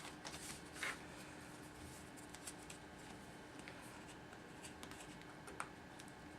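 Faint light clicks and rustling of a replacement laptop battery being handled and set into an opened MacBook Air, with a slightly louder rustle about a second in.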